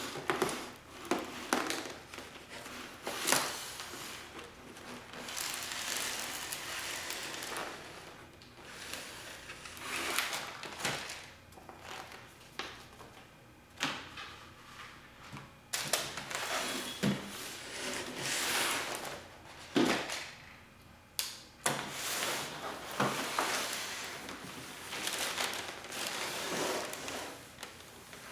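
Handling noise from unboxing an airsoft electric rifle: irregular rustling and crinkling of packaging, with scattered sharp clicks and knocks of plastic and metal parts being handled.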